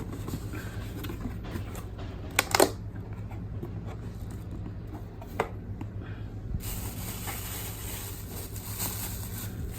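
Handling noises while unboxing: a few sharp clicks and knocks, the loudest cluster about two and a half seconds in and another click past the middle, over a steady low hum. The grinder is not running.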